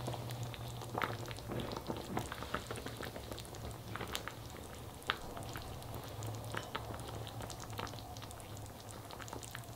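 Beef brisket doenjang jjigae (soybean paste stew) bubbling in a black earthenware pot, a steady scatter of small irregular pops over a low steady hum.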